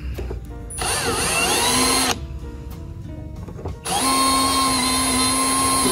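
Cordless drill running in two bursts, each spinning up in pitch and then holding steady, as it bores rivet holes through the edge of an aircraft door frame. The first run lasts about a second; the second starts about four seconds in and runs for about two seconds.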